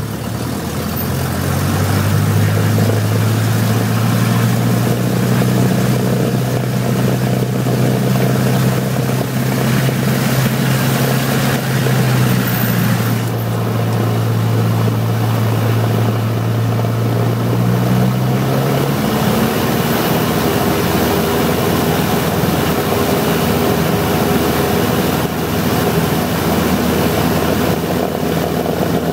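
Light aircraft's piston engine and propeller running, heard from inside the cockpit as the plane rolls over a grass strip. The engine note rises and gets louder a second or two in, holds steady, then drops back about two-thirds of the way through.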